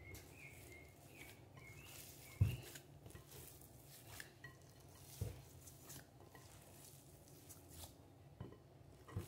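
Hand mixing and squeezing a soft mashed-banana and cassava-flour dough in a glass bowl: faint handling sounds with a few soft low thumps, the loudest about two and a half seconds in.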